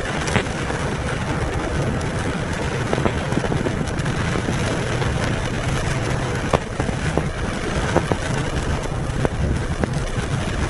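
Heavy rain pattering on a car's roof and windshield, heard from inside the cabin as a steady rushing hiss with scattered sharp ticks of drops, over the low hum of the car's engine running.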